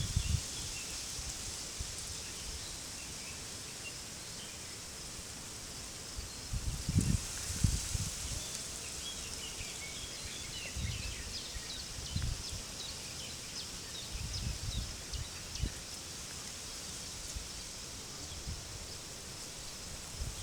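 Outdoor field ambience: wind gusting against the microphone in low rumbles now and then, loudest about seven seconds in, over small birds chirping steadily and a constant high hiss.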